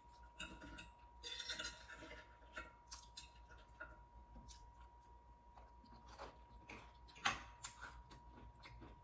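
Soft, scattered clicks and short scrapes of a metal fork against a shell-shaped plate as fried butterfly shrimp are cut and picked at, with chewing in between. A faint steady high tone runs underneath.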